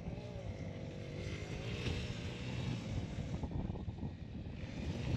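Small four-wheeler (ATV) engine running, its pitch wavering up and down as the throttle changes.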